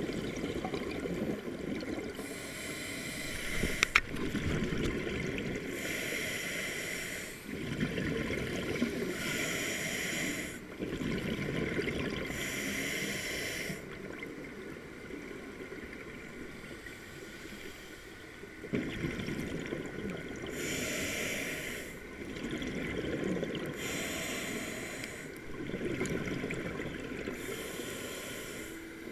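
Scuba diver breathing through a regulator underwater: a hiss on each inhale, then a rush of exhaled bubbles, repeating every three to four seconds with a quieter spell around the middle. A sharp click about four seconds in.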